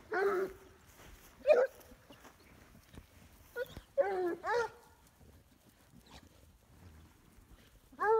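A pack of blue-ticked hounds giving short yelping bays, about six calls in scattered bursts with a quiet gap of a few seconds before a last call near the end.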